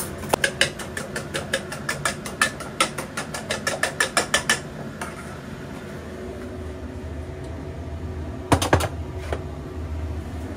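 Fork whisking eggs in a metal bowl: a fast, even run of clinks, about eight a second, that stops after four to five seconds. A few louder knocks follow about eight and a half seconds in.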